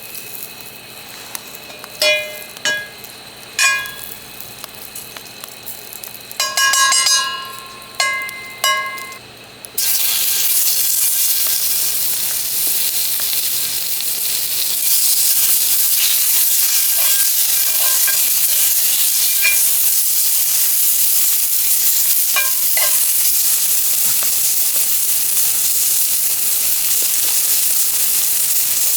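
Food sizzling as it fries in a hot pan: a loud, steady sizzle that cuts in suddenly about ten seconds in and grows louder about five seconds later. Before it come a few short ringing clinks.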